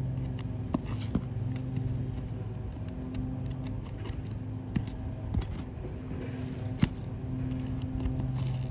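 A steady low mechanical hum, like an idling engine, with scattered sharp metallic clicks and scrapes as a flat pry bar works under an asphalt shingle tab to loosen its nails.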